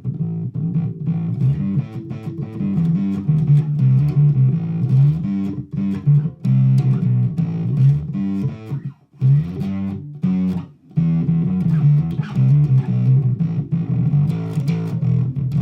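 Music Man DarkRay electric bass played through its onboard Darkglass preamp: a busy riff of low notes, broken by short pauses about 6, 9 and 11 seconds in.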